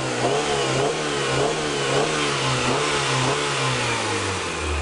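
1993 Honda Accord's four-cylinder engine revved with several quick snaps of the throttle, its pitch rising and falling with each, then settling back toward idle at the very end. This is a snap-throttle test for engine rocking, done on freshly replaced motor mounts.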